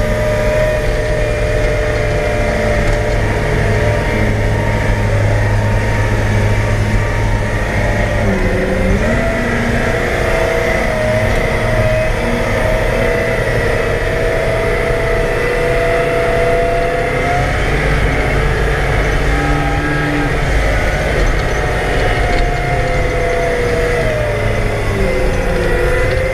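Caterpillar 769C off-highway dump truck's V12 diesel engine running steadily as the truck drives, heard from inside the cab. The engine pitch dips briefly about eight seconds in and again near the end, then recovers.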